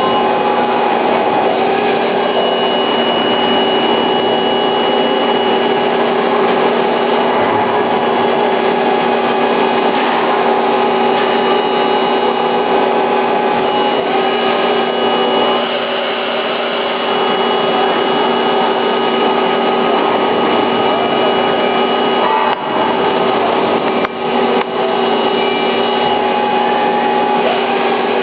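Johnford SL-500 CNC slant-bed lathe machining: a loud, steady mix of several held whining tones over a dense hiss. The level briefly dips twice late on.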